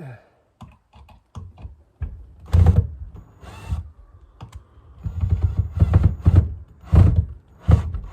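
Irregular clicks, clatter and heavier thumps of a wooden board and latch hardware being handled and knocked into place, with the heaviest knocks coming in clusters in the second half.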